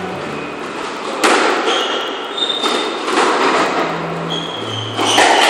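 Squash rally: the ball cracks off rackets and the walls in several sharp, echoing hits, the loudest about a second in and near the end, with a few short high squeaks of shoes on the wooden court floor.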